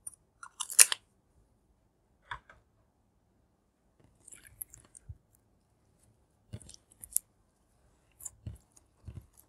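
Pink glitter slime handled by hand: scattered short sticky clicks and crackles, the sharpest cluster about a second in, with more in bunches near the end as the slime is folded over the lipsticks and eyeshadow.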